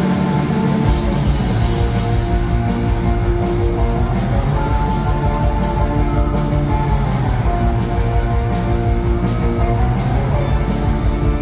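Loud rock music with held guitar notes over a heavy bass; the deep bass comes in about a second in.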